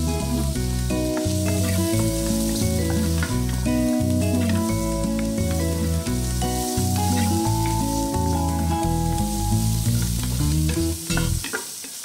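Background music with a bass line plays over food sizzling as diced meat fries in a metal pan. Near the end the music stops, leaving the sizzle and a few clicks of a wooden spatula stirring against the pan.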